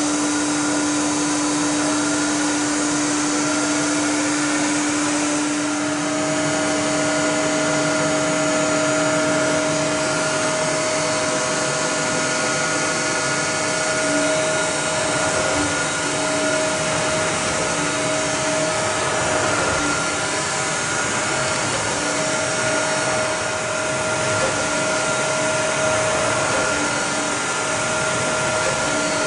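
Rosa Linea Avion 11-7 grinding machine running: a steady mechanical whir with several steady tones on top. One tone rises in pitch about five seconds in and then holds.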